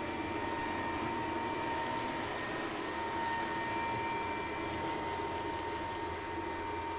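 Ryobi battery-powered backpack leaf blower running at a constant speed: an even rush of air with a steady high whine.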